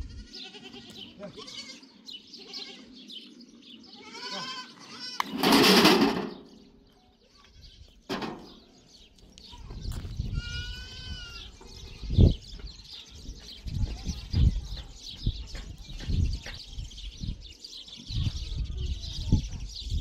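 Goats bleating now and then, with a loud rushing burst about six seconds in. The second half has low rumbling buffets and a steady high hiss.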